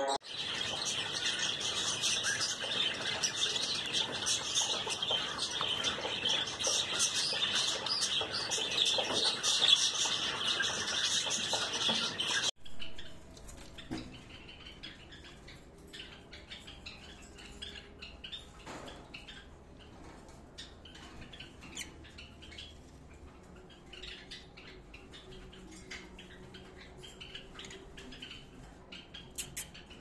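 An aviary full of cockatiels and other small caged birds chirping and squawking loudly and continuously. About twelve seconds in it cuts off abruptly to a much quieter cage with only faint, scattered chirps.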